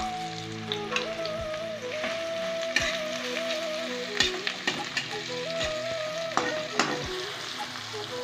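Sliced onions sizzling steadily in hot oil in a metal kadai, with a metal spatula scraping through them and knocking sharply against the pan several times as they are stirred.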